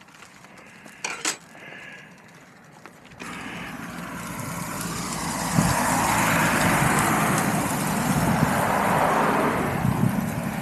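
A few light clinks of kitchenware, then a road vehicle passing close by. Its rushing tyre and engine noise comes in suddenly, swells over several seconds and eases off near the end.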